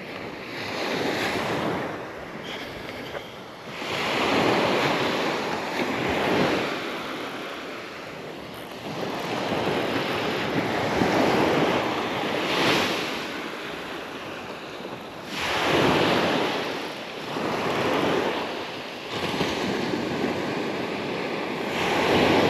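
Small waves breaking on a sandy beach, with wind buffeting the microphone; the surf swells and falls every few seconds.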